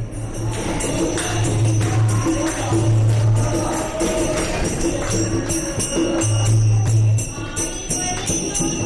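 Devotional bhajan music: group singing with a hand drum and steady, dense jingling percussion.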